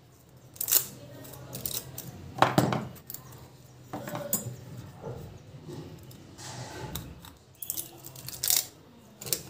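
Angle grinder switches and small tool parts being handled: irregular clicks and light clatter of hard plastic and metal, loudest about two and a half seconds in.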